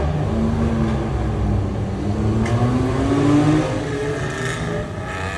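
Nissan Skyline 'Hakosuka' L28 straight-six on Mikuni carburettors pulling hard in a tunnel. Its note climbs steadily, drops sharply at a gear change about three and a half seconds in, then climbs again.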